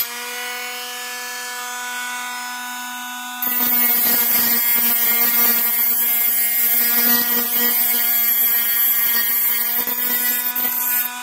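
Dremel rotary tool with a cutoff wheel running at a steady high whine, then cutting the end off a sway bar from about three seconds in, adding a harsh grinding hiss over the whine.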